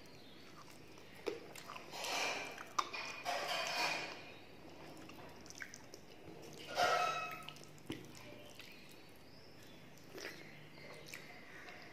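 Close-up eating sounds: fingers squishing and mixing soft khichuri on a steel plate and wet chewing mouth sounds, coming in a few short bursts with scattered sharp clicks between them.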